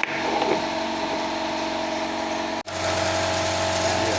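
Steady mechanical hum of a running engine or machine in a workshop. It breaks off sharply about two and a half seconds in and resumes with a deeper hum.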